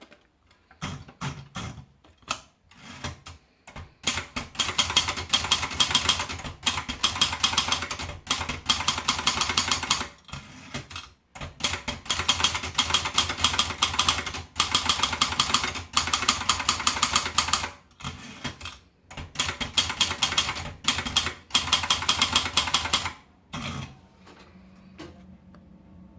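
Sperry Remington Ten Twenty typewriter being typed on: rapid keystrokes in runs of a few seconds with short pauses between, stopping about two seconds before the end.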